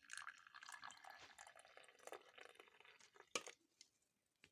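Hot kahwa (herbal tea) being poured from the pot into a cup: a faint pouring splash that tapers off about three seconds in, followed by a light clink.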